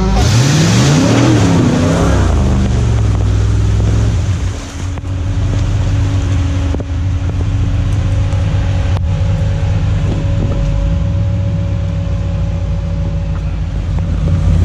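Engine of a modified off-road truck revving hard under load in mud. Its pitch rises and then falls over the first two seconds. After a brief dip it runs steadily, with a steady higher whine over it for most of the rest.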